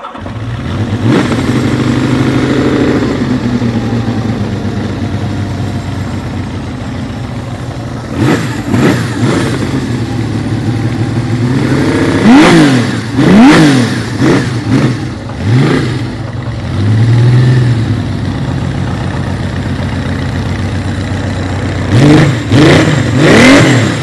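1978 Benelli 750 Sei's air-cooled inline six-cylinder engine, breathing through its six-pipe exhaust, catching and settling into a steady idle. Later it is revved with a series of quick throttle blips that rise and fall sharply, with a last cluster near the end.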